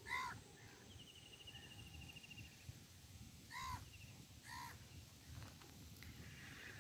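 Faint bird calls: three short calls, one at the start and two more about three and a half and four and a half seconds in, with a thin high trill between the first two.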